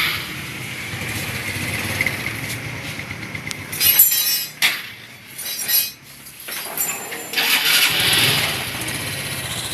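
Honda Revo FI single-cylinder engine running after being refitted to the frame. It drops out about four seconds in amid a few loud hissing bursts, then starts again about eight seconds in and settles to a steady idle.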